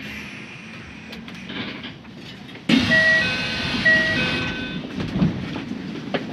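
Electric commuter train standing at a platform with a low steady hum, then, about halfway through, a sudden blast of air hiss and a descending two-note door chime sounding twice as the doors close.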